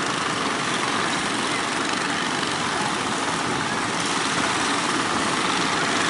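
Steady noise of breaking surf and wind, with the engines of motorised outrigger fishing boats running through it.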